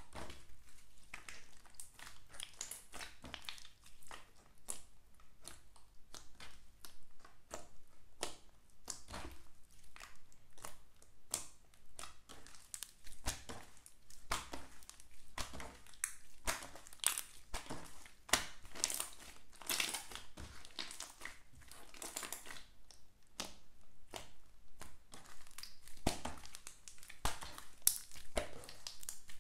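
Glossy slime being squeezed, folded and stretched by hand, giving a dense run of small crackles and pops.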